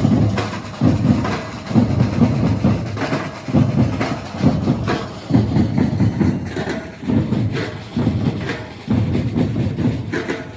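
Batucada percussion ensemble playing a steady groove: deep bass drum beats pulse a little more than once a second over a continuous rattle of snare and shaker-type drums.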